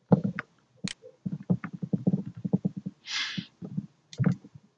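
A man's low voice murmuring indistinctly, with a short breathy hiss about three seconds in.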